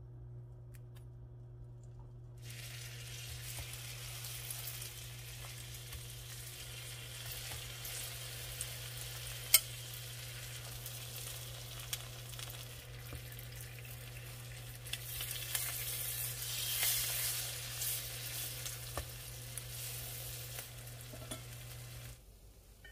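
Egg-soaked bread slices frying in butter in a pan, sizzling steadily from about two seconds in, with one sharp click partway through and louder sizzling for a few seconds later on. A steady low hum runs beneath the sizzling and stops just before the end.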